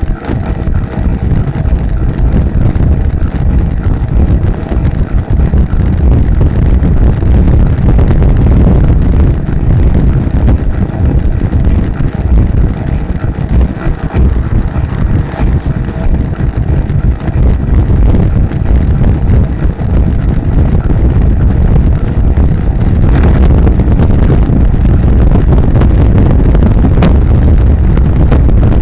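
Wind buffeting the microphone of a camera mounted on a bicycle ridden at speed: a loud, unbroken low rumble.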